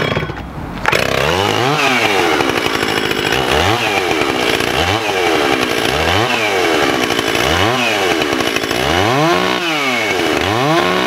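Stihl two-stroke chainsaw engine running and being revved, its pitch rising and falling back over and over, roughly every second and a half.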